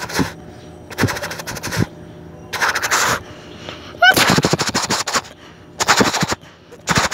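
A child's mouth-made machine-gun noises: five short bursts of rapid rattling, the longest and loudest about four seconds in.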